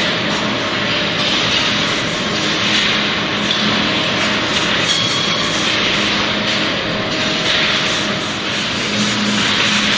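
Steady, loud machinery noise with a low hum running under it, holding even throughout.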